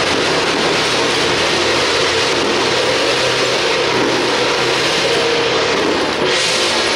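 Temple procession percussion of gongs and cymbals making a loud, continuous clashing din, with brighter cymbal crashes about six seconds in.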